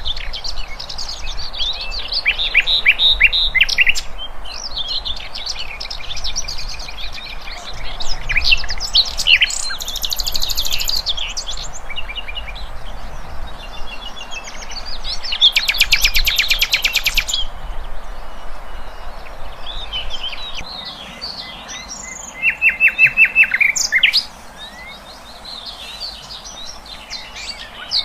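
Songbird song for a masteran tutor recording: a continuous string of varied chirps, whistles and fast rattling trills, the phrase type changing abruptly every few seconds. It goes quieter about 24 seconds in.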